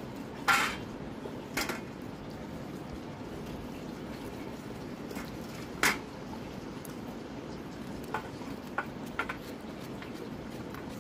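A small kitchen knife knocks and scrapes against a steel plate as a gourd is cut into pieces by hand over it. There are three louder clinks in the first six seconds, then a few lighter taps near the end.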